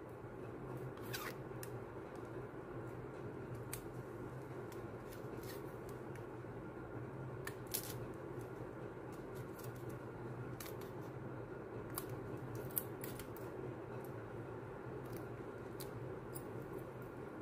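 Hand crafting noises: scattered small clicks and snips from scissors and tape being handled, over a steady low hum.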